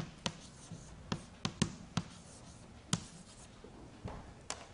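Chalk writing on a chalkboard: a string of sharp taps as the chalk strikes the board for the letters, dots and numerals, most of them in the first three seconds and one more near the end.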